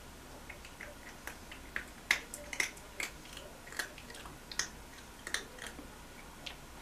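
A cat eating wet food from a plate: irregular, quick, wet clicks of chewing and lip-smacking.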